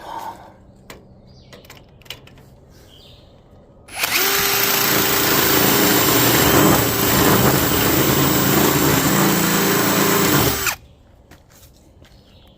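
Power drill running steadily under load for about seven seconds, starting suddenly about four seconds in and stopping sharply, with a few light clicks before it.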